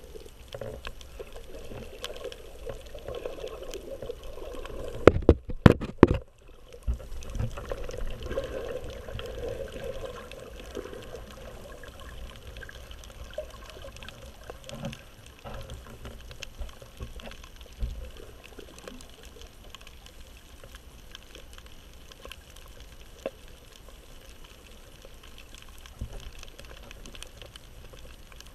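Muffled underwater water noise picked up through a waterproof action-camera housing while snorkeling over a reef: a steady low rushing with scattered faint clicks, and a few loud thumps about five to six seconds in.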